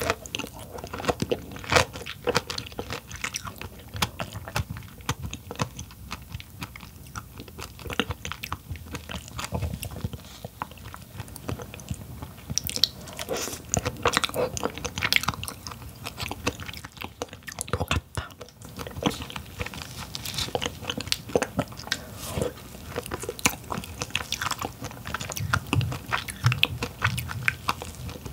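Close-miked eating of king crab: chewing and biting with many sharp, irregular crackles and clicks.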